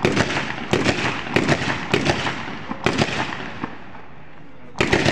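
Repeated sharp bangs and crackles in irregular clusters, several a second, each with a short ringing tail, pausing briefly near the end.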